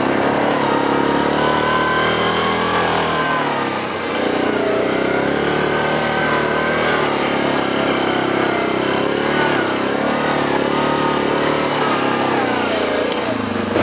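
ATV engine running under way, its pitch rising and falling with the throttle, with a brief easing off about four seconds in.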